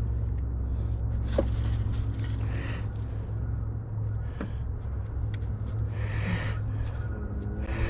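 A steady low rumble, with scattered light clicks and scrapes from a screwdriver and hand tools working on parts of the car's radiator and condenser assembly.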